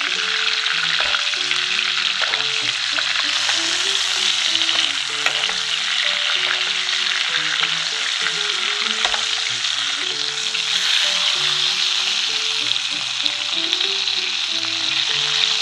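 Steak sizzling in foaming butter and olive oil in a frying pan while it is basted, a steady dense crackle. Soft background music plays underneath.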